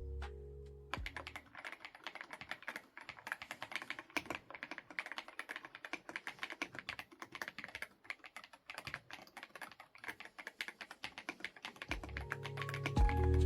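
Fast typing on an Ajazz AK820 Pro mechanical keyboard with Kiiboom Sweet Rebel keycaps: a dense, continuous patter of keystrokes. Background music fades out about a second in and returns near the end.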